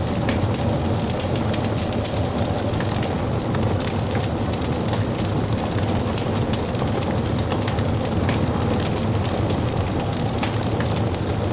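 Wood fire crackling and gently popping: scattered sharp crackles over a steady low rumble.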